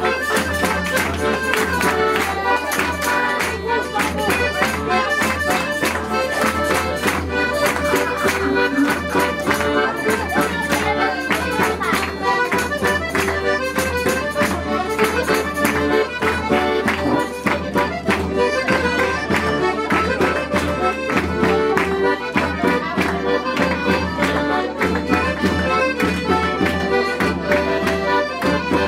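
Lively Portuguese folk music played live on an accordion with small strummed guitars and a small drum, with a tambourine and a crowd clapping along in time.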